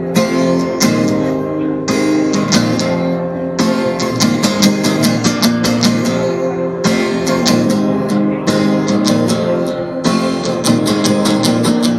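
Guitar strumming chords in a steady rhythm: the instrumental intro of a live song, before the vocals come in.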